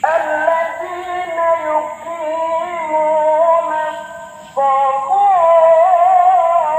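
Music with a sung melody that starts suddenly, breaks off briefly about four and a half seconds in, then resumes.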